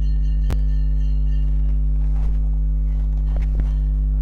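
Steady electrical mains hum, a low drone made of a 50 Hz tone and its odd harmonics, with one sharp click about half a second in.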